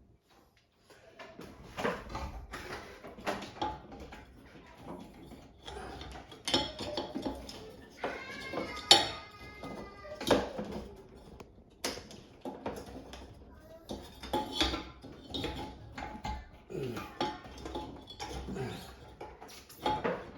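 Irregular clinking, clattering and knocking of small hard objects being handled, with a few sharp knocks about nine and ten seconds in.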